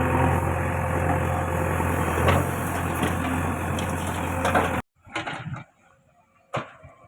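Heavy diesel machinery engine running steadily with a deep low hum. It cuts off suddenly about five seconds in, followed by faint knocks and one sharp click.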